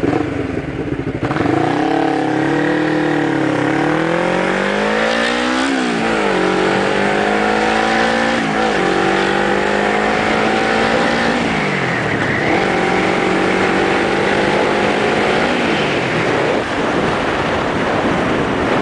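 Motorcycle engine pulling away and accelerating through the gears: its pitch climbs, drops sharply at shifts about six and nine seconds in, then holds steady while cruising. The engine note falls away around sixteen seconds in as the bike eases off, leaving rushing air noise on the bike-mounted microphone.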